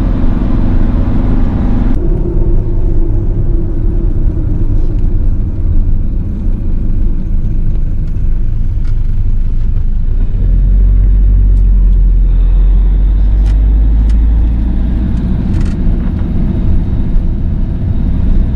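Loud, steady low rumble of a vehicle on the move, growing deeper and heavier for a few seconds about ten seconds in.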